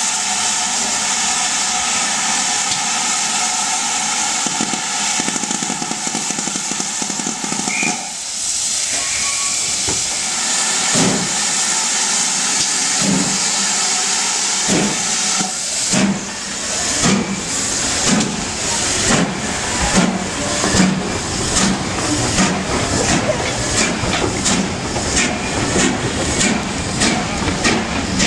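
Steam locomotive blowing off steam with a loud steady hiss that stops about eight seconds in. It then starts away, its exhaust beats coming slowly at first and quickening steadily toward the end, with steam hissing around the cylinders.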